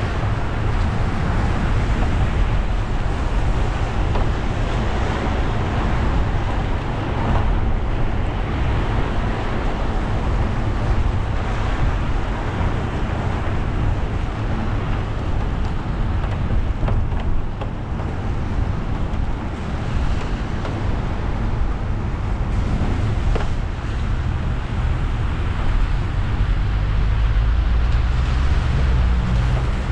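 Car driving on wet roads in the rain: a steady wash of tyre and road noise over a low rumble that swells a little near the end.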